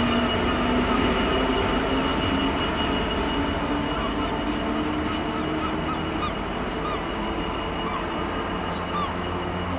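A Class 66 diesel locomotive running light, its engine running steadily and slowly fading as it pulls away.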